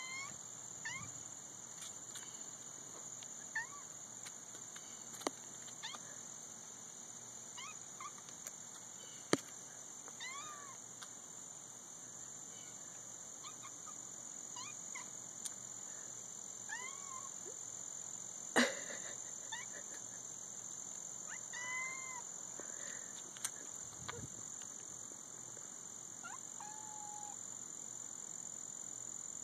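Kitten giving short, faint mews now and then, some in quick pairs, with a few sharp clicks between them and a steady high-pitched whine underneath.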